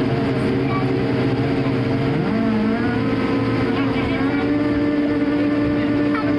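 Airbus A220-300 cabin noise while taxiing: the Pratt & Whitney PW1500G geared turbofans run with a steady hum. About two seconds in, a low engine tone rises in pitch and then holds higher.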